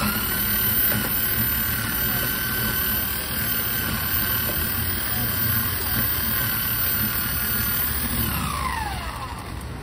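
An electric juice blender motor running at a steady high whine, then winding down with a falling pitch near the end as it is switched off.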